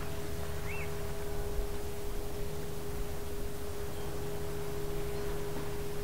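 Outdoor ambience: a steady low rumble with a constant hum running through it, and a single short bird chirp under a second in.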